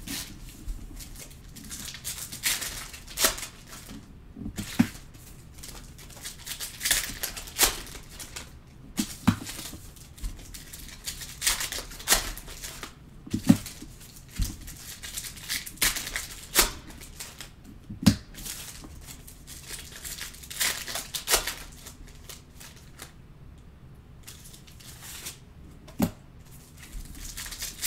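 Trading-card packs being handled and opened by hand: irregular rustling and crinkling of the pack wrappers, with sharp clicks of cards and packs knocking and sliding against each other.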